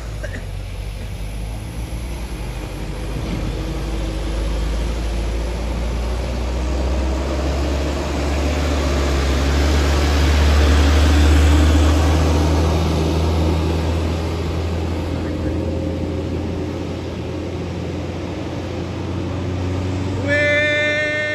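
Loaded Mitsubishi Canter sugarcane truck's diesel engine pulling uphill, growing louder as it passes close, loudest about halfway through, then fading. Near the end a horn sounds briefly.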